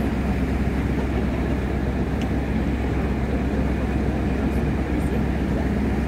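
Steady low rumble of a river tour boat's engine running under way.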